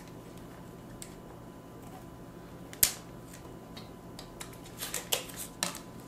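Small clicks and taps of a plastic container being handled as chopped onions are dropped into a ceramic mixing bowl, with one sharp click about three seconds in and a run of lighter clicks near the end.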